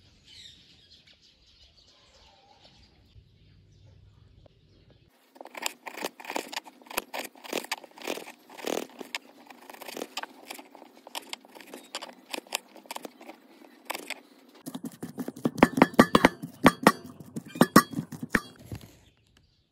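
After a faint start, a knife chops red onion on a wooden board: a run of sharp, irregular knocks. Near the end come louder, heavier knocks of boiled potatoes being mashed in a bowl.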